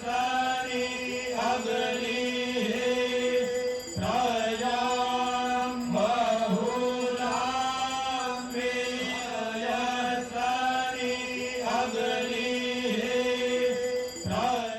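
Devotional chanting in praise of the river Ganges, a voice singing repeated phrases of a couple of seconds each over a steady held drone note.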